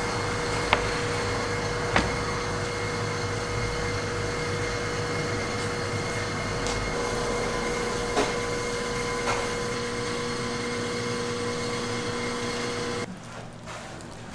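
A machine's motor running steadily with a held whine over a low hum, cutting off suddenly near the end. A few light knocks sound over it.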